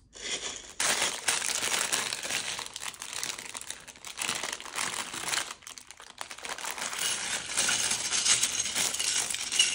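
Plastic LEGO parts bag being opened and handled, crinkling steadily, with a brief lull about six seconds in.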